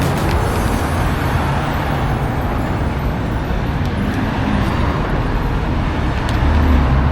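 Street traffic noise: vehicles running on a busy road, with a steady low hum that grows louder near the end.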